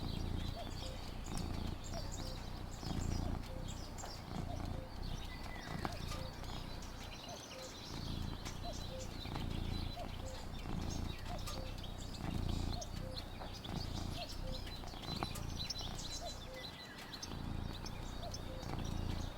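Outdoor ambience: scattered bird chirps over a low, uneven rumble, with a faint short note repeating steadily throughout.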